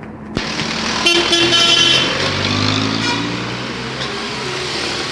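A bus's multi-tone 'telolet' musical horn sounds for about a second, starting about a second in, over the bus engine running as it drives past.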